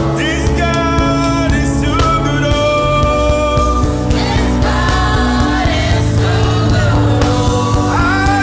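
Gospel worship song with sung vocals held on long notes over a band accompaniment with a steady bass.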